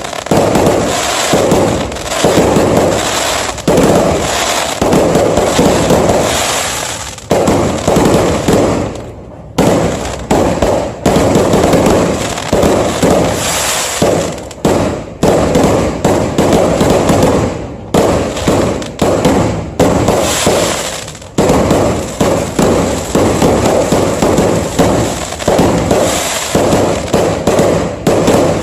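Many fireworks and firecrackers going off in rapid, overlapping bangs and crackles, with brief lulls about a third of the way in and again about three quarters of the way in.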